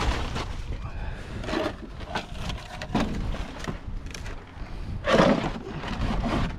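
Junk being handled and shifted in a hard-rubbish pile: irregular knocks and clatters of objects, with a louder clatter about five seconds in.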